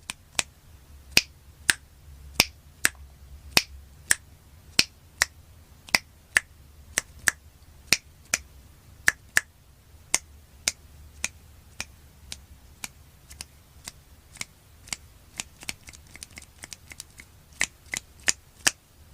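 Fingers snapping over and over, about two to three sharp snaps a second at an uneven pace, some louder than others.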